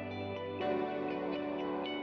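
Background music: calm, ambient electronic track with plucked, guitar-like notes over sustained tones.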